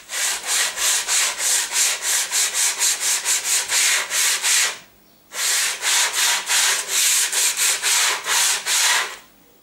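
Hand sanding a plywood panel with sandpaper: quick back-and-forth scratchy strokes, about five a second, rounding off the sharp edges. The strokes pause briefly about five seconds in and stop just before the end.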